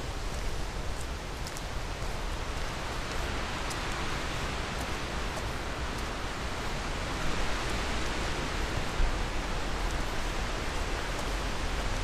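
Strong wind blowing through trees, leaves rustling in a steady hiss that swells for a few seconds midway, with low wind rumble on the microphone.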